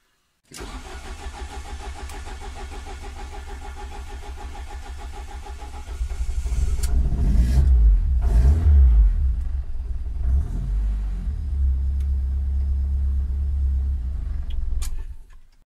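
Ford Focus ST170's 2.0 four-cylinder engine, fitted with GSX-R 750 individual throttle bodies, cranked on the starter for about five seconds before it catches, runs unevenly and revs for a few seconds, then settles to a steady idle and cuts off near the end. The long crank is the engine's hard-starting fault, being tuned with more cranking fuel.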